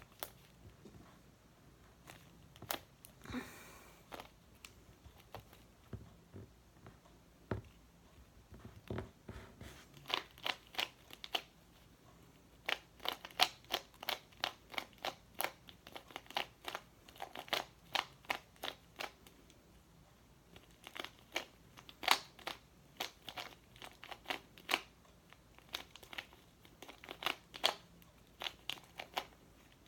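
Speed cube being turned fast by hand during a timed solve: quick plastic clicks in bursts, with short pauses between the bursts, sparse for the first few seconds and then dense.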